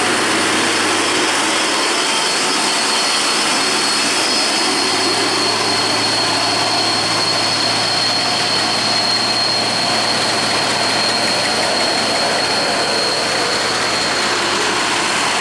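Diesel engine of a Hino dump truck loaded with split stone, pulling steadily up a steep winding climb. The drone is heavy and continuous, with a steady high whine over it.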